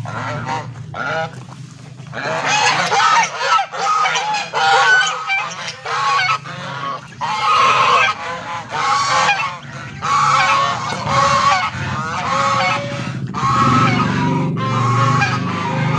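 A flock of domestic geese honking: a few separate calls at first, then a near-continuous run of overlapping honks from about two seconds in, over a low steady hum.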